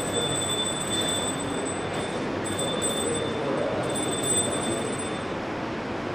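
Puja hand bell rung continuously during the lamp offering, a steady high ringing that breaks off twice in the middle and dies away near the end, over a steady background hiss.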